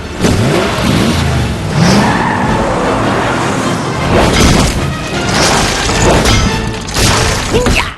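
Cartoon sound effects of an armoured war vehicle charging and ramming a door, with several heavy crashes and booms, over loud action music.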